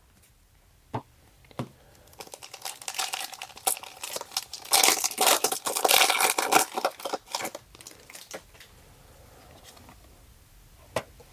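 Pokémon TCG booster pack's foil wrapper being crinkled and torn open: a few seconds of dense crackling and ripping, preceded by a couple of light clicks.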